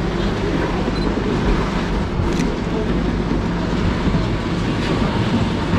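Garbage truck's engine running steadily, a low unbroken drone.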